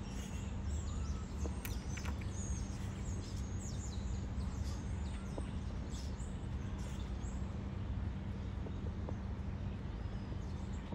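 Outdoor ambience: a steady low hum under scattered short, high chirps of small birds, most frequent in the first part and thinning out later.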